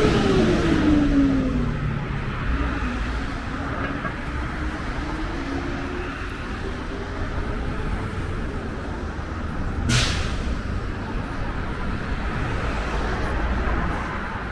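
City street traffic: a vehicle passes close by at the start, its engine tone dropping in pitch as it goes, then another engine tone rises slowly, over a steady low traffic rumble. A single sharp click or knock sounds about ten seconds in.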